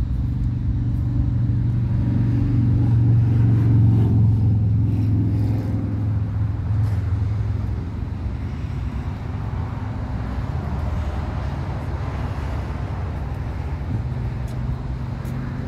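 Distant rumble of a SpaceX Falcon Heavy rocket in powered ascent: a low, continuous rumble that swells a few seconds in and eases off after about eight seconds.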